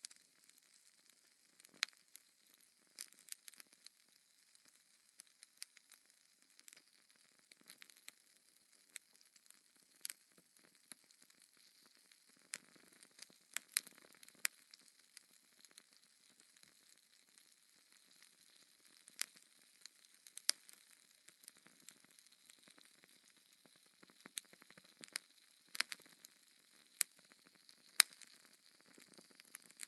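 Wood fire in a fireplace crackling quietly: a faint hiss broken by sharp, irregular pops and snaps, the loudest near the end.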